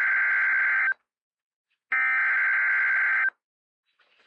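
Emergency Alert System SAME header data bursts on NOAA Weather Radio, the coded digital header that opens a River Flood Warning: loud, buzzy warbling data tones. One burst ends about a second in, a second full burst of about a second and a half follows, and a third begins at the very end.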